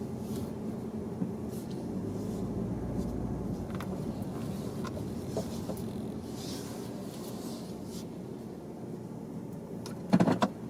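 Car engine running, heard as a steady low hum inside the cabin, with a few small clicks and handling noises and a brief louder knock about ten seconds in.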